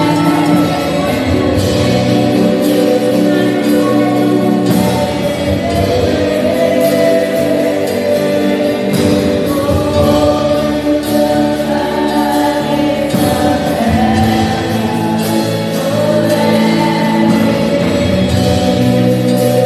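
Gospel worship music: voices singing together over a live band.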